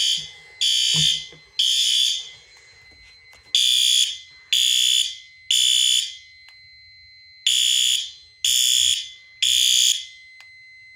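Fire alarm horns on a System Sensor–synchronised circuit sounding in unison in the temporal-3 evacuation pattern: three short blasts, a pause of about a second and a half, repeated three times. This is a general alarm condition. A faint steady high tone continues through the pauses.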